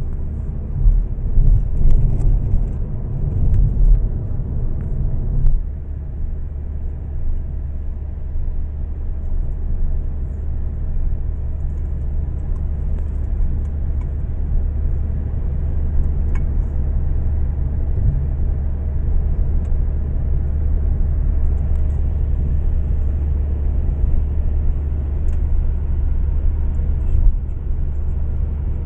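Road noise heard inside a moving car at highway speed: a steady low rumble of tyres and engine. It is heavier and more uneven for the first five seconds or so, then settles.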